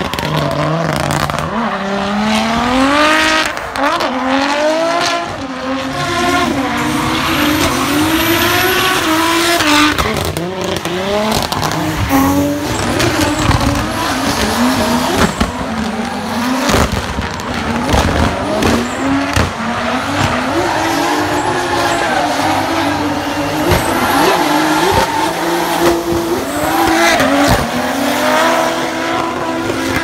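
Drift car engines, among them a VR6-swapped BMW E36's narrow-angle V6, revving up and down over and over through long slides, with tyres squealing.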